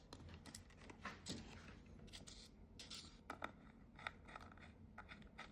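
Faint small clicks and scrapes of hands fitting an SSD into its enclosure, spaced irregularly.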